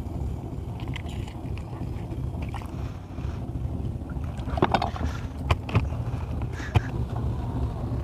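A fishing boat's engine running with a steady low drone. Three sharp knocks come in the second half.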